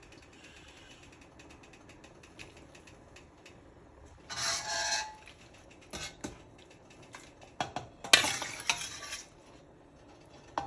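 A spoon stirring stew in a pot, scraping the pot about four seconds in and again after a sharp knock against it a little after eight seconds, with scattered clinks in between.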